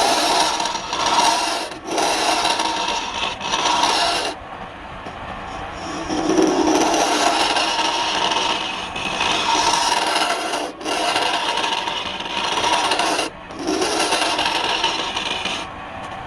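Woodturning on a lathe: a tool scraping the spinning wood in stretches of steady scraping, broken now and then by short, sudden gaps.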